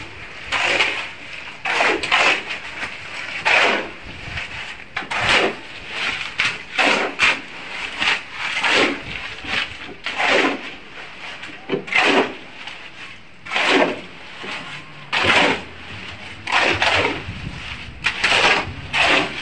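Shovel scraping and scooping through gravel and sand in repeated short strokes, roughly one a second.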